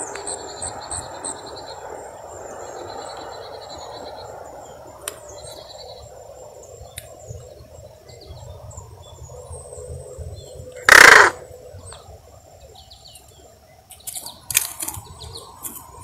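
A crow gives one short, harsh call about eleven seconds in, by far the loudest sound, over faint high chirping. A few sharp clicks follow near the end.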